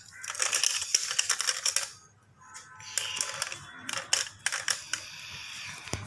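Plastic toy truck rattling with rapid clicks as it is handled and pushed along, in two bursts, the first louder.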